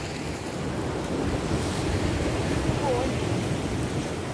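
Sea surf washing and breaking over shoreline rocks, with wind buffeting the microphone.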